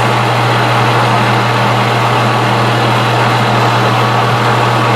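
Metal lathe running steadily, a strong low hum under an even hiss, while the cutting tool is hand-fed into the face of bar stock.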